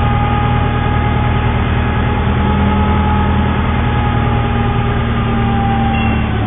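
Passenger ferry's diesel engine running steadily with a low hum, heard from on board. Right at the end its note drops as the boat slows to stop at a landing.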